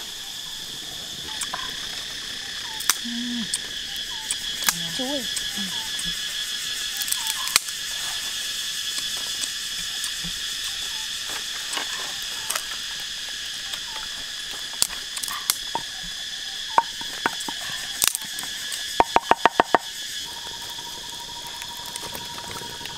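Steady chorus of forest insects buzzing in several high tones, with scattered sharp clicks and a quick run of about eight clicks near the end.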